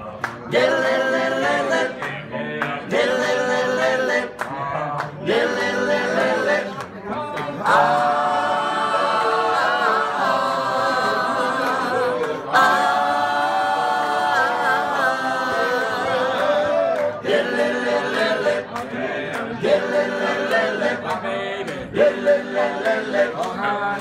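A group of voices singing a cappella in harmony, in short phrases at first, then long held chords with vibrato through the middle.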